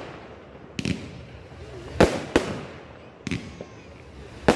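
Display fireworks bursting: about five sharp bangs at uneven intervals, each followed by a rumbling echo that dies away.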